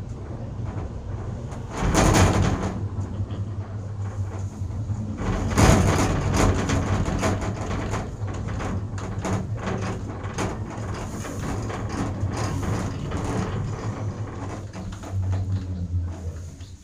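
Chairlift ride sounds: a steady low rumble of the moving chair with ongoing clicking and rattling, and two loud clattering rumbles about two and five and a half seconds in as the chair runs past a lift tower's sheave wheels.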